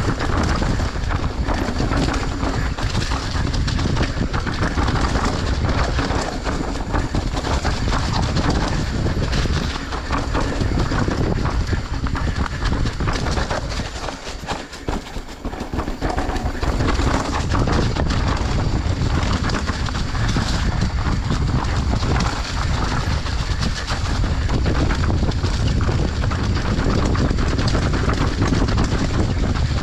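Enduro dirt bike riding over a rough trail: a continuous clatter of the bike rattling over bumps, mixed with engine and wind noise on the camera. It drops off briefly about halfway through.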